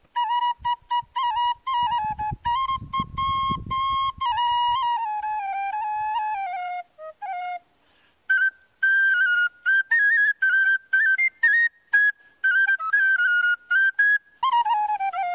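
Background music: a solo flute playing a melody, one line of notes with short breaks between phrases, moving to a higher register about halfway through. A brief low rumble sits under it between about two and five seconds in.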